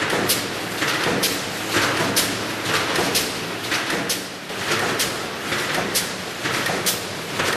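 Automatic wire mesh welding line for rolled mesh running, with a dense clatter and hiss and sharp strokes repeating about twice a second.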